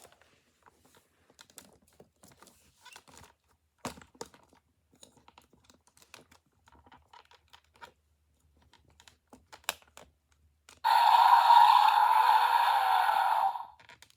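Plastic toy dinosaur figures clicking and tapping as they are handled. About eleven seconds in comes a loud, harsh sound, nearly three seconds long, which cuts off suddenly.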